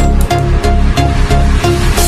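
Electronic background music with a steady, bass-heavy beat, about three beats a second.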